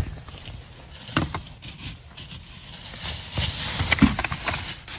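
Plastic wrapping crinkling and rustling while debris is shifted by hand, with irregular knocks of hard items bumping together, the loudest about four seconds in.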